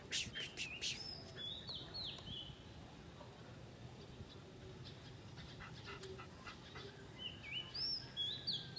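A bird singing a short phrase of swooping whistled notes, once about a second in and again near the end.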